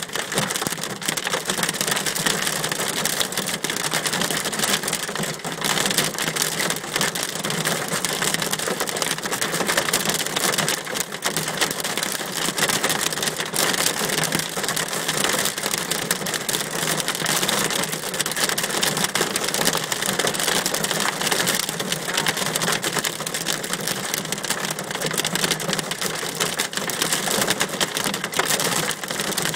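Hailstorm with heavy rain pelting down: a dense, unbroken clatter of countless small impacts.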